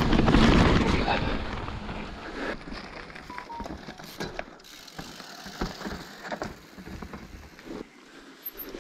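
Mountain bike rolling fast over a rocky, rooty trail: tyres crunching over rock and dirt while the bike rattles and clatters with many small knocks. It is loudest in the first second, then quieter.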